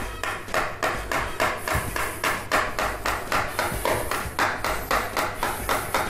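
Chef's knife chopping a rolled log of fresh pasta dough into noodles, each stroke knocking through onto a floured steel counter. The strokes are quick and even, about four a second.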